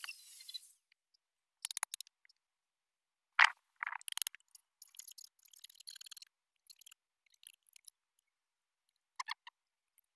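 An angle grinder's high steady noise stops within the first second. Scattered metal clinks and scrapes of hand tools at a steel bench vise follow, with a sharp clack about three and a half seconds in and a stretch of quick scraping on metal a little later.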